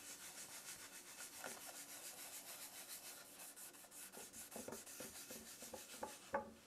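Faint rhythmic rubbing of a white nylon finishing pad on wood, working thinned dark tung oil into the surface: a soft scrubbing swish that comes and goes several times a second. A short louder sound comes near the end.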